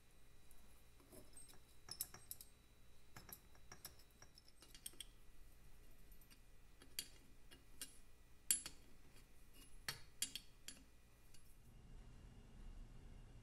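Faint, scattered metallic clicks and clinks of an open-ended spanner and small fittings against a Vincent Rapide's alloy cylinder head as a fitting is worked on, the sharpest click a little past halfway; the clicking stops near the end.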